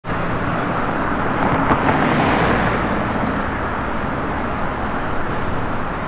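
Road traffic noise: cars driving past close by, the nearest one loudest about two seconds in.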